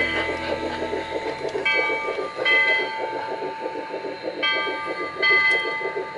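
Large-scale garden-railway model train rolling along the track, with a fast, even clicking of its wheels over the rails. There are two pairs of short whistle toots, about two seconds in and again about four and a half seconds in.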